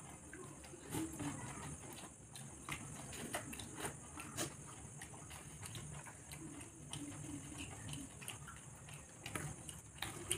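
Eating by hand from steel plates: chewing and mouth smacks with fingers scraping and tapping the plates, a scatter of small irregular clicks.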